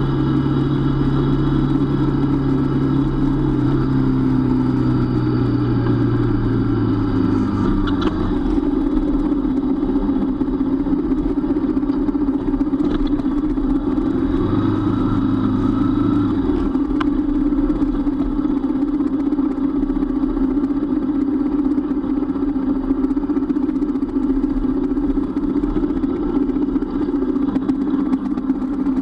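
Motorcycle engine running steadily, close to a bike-mounted camera, with a few sharp clicks.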